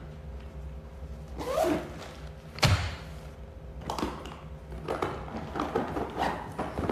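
A single soft thump nearly three seconds in, among lighter knocks and rustles, heard in a small room.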